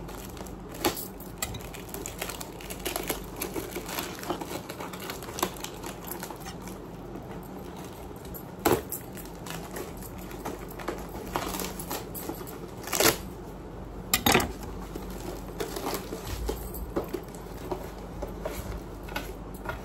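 A taped courier parcel being cut open with a knife and unwrapped by hand: scattered crinkling, scraping and small clicks of packaging, with a few louder knocks in the second half.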